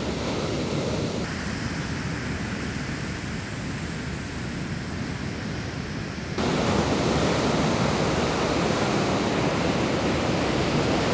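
Ocean surf breaking and washing up the beach, a steady rush of water noise with some wind on the microphone; it steps up louder about six seconds in.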